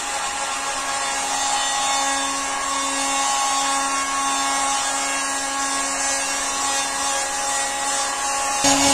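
Heat gun running steadily, a constant whine over a hiss, warming freshly sprayed clear coat to cure it. It gets louder just before the end.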